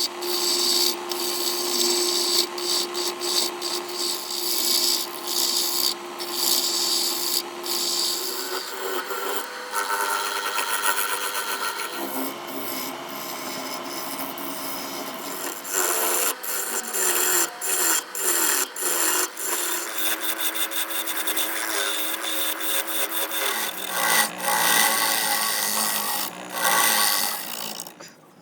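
Woodturning on a lathe: a tool cutting and scraping the spinning wood in repeated uneven passes, with a steady hum under it for the first eight seconds or so.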